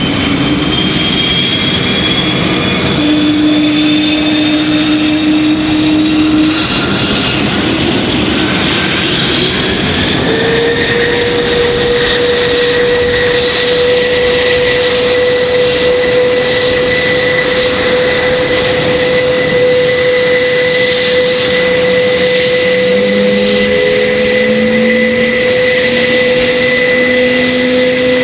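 Airbus A400M Atlas's four Europrop TP400 turboprop engines running on the ground, their eight-bladed propellers turning, a loud steady whine over propeller noise. About ten seconds in, one engine tone rises in pitch and then holds steady.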